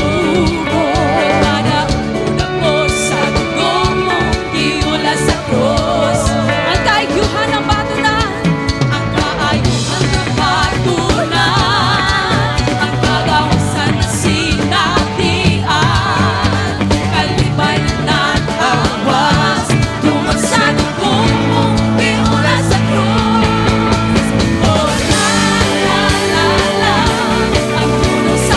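Worship band playing a song with a lead singer, over a steady bass line and drums.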